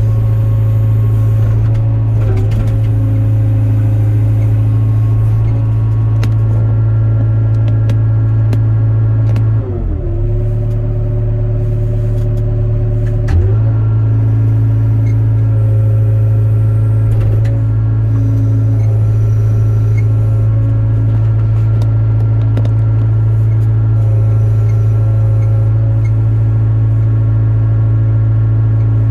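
Diesel engine of a Hyundai 02-class mini excavator running steadily at working speed, with a steady hum above the engine note. About ten seconds in, the engine note drops lower for a few seconds, then comes back up.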